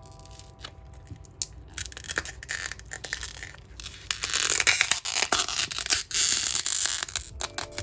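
Close, dense crackling and crinkling with many small clicks, like something being crushed or handled by hand, loudest in the second half.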